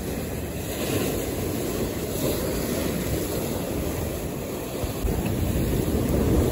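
Rough ocean surf breaking and washing over the rocks of a jetty, a steady rushing noise that swells louder about five seconds in, with wind on the microphone.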